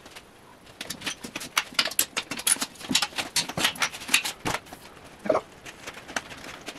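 A sheet of paper, a rough-cut paper template, rustling and crackling as it is handled. There is a rapid, irregular run of crinkles for a few seconds from about a second in, then a few softer ones near the end.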